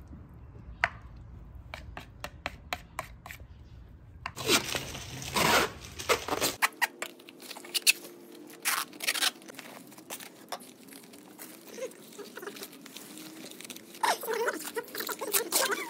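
Plastic cling film being pulled, torn and crinkled as it is stretched over a plastic bowl and pressed down around its rim: a run of sharp crackles and rustling, after a few scattered clicks at the start.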